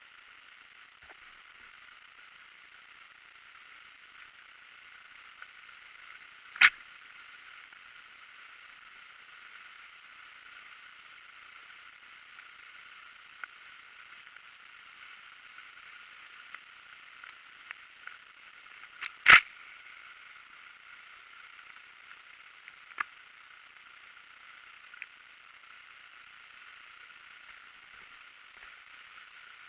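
Steady rushing of water at a river waterfall, an even hiss. Two loud sharp clicks cut through it, about a quarter of the way in and again about two-thirds through, with a few fainter ticks between.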